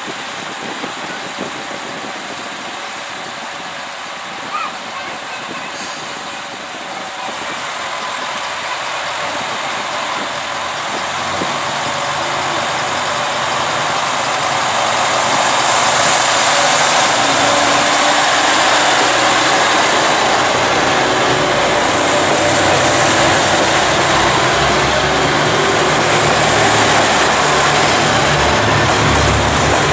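JR Shikoku 2000 series diesel railcars idling at the platform. About eleven seconds in their engines open up, growing louder as the train pulls away and the cars pass close by.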